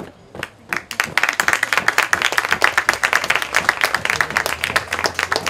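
Audience clapping and applauding, breaking out about a second in and holding loud and steady.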